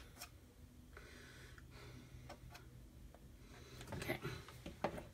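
Faint, scattered clicks and light taps from handling a small jar of chalk paste and its applicator stick over a glass pane, over a low steady hum. The taps come more thickly and louder about four seconds in.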